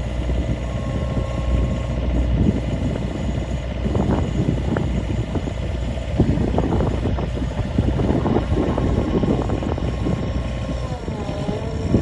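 Toro Groundsmaster 455D mower's four-cylinder diesel engine running steadily, with a whine that drops in pitch near the end.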